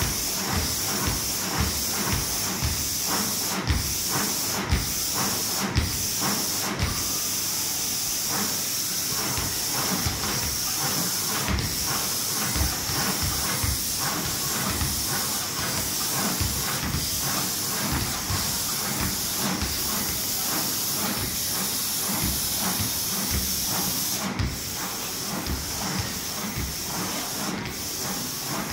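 Basketballs dribbled by gantry robots bouncing on a wooden court floor, several short thumps a second in an irregular patter. A constant high hiss runs beneath.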